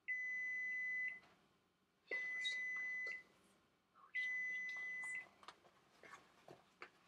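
Microwave oven beeping: three long, steady electronic beeps, each about a second long and about two seconds apart. A few faint clicks follow near the end.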